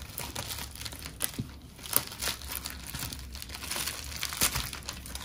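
Packaging wrap crinkling in irregular crackles as a tightly wrapped packet is worked open by hand.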